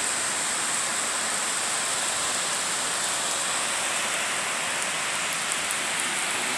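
Heavy rain pouring down steadily, an even hiss of downpour.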